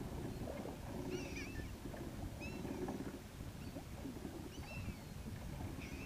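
Gulls calling, a short bending call every second or so, over steady wind and water noise around the boat.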